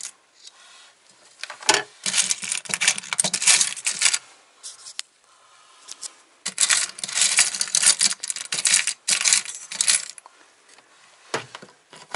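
Small metal odds and ends clinking and rattling as they are rummaged through by hand while searching for coins, in two bursts of a few seconds each with single knocks between.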